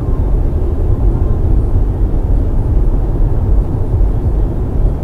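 Steady low rumble of tyre and wind noise heard inside a car's cabin as it cruises at about 66 mph on a motorway.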